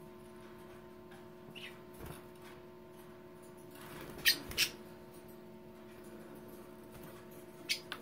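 Pet budgerigars giving a few short, sharp chirps: two close together about four seconds in and two more near the end.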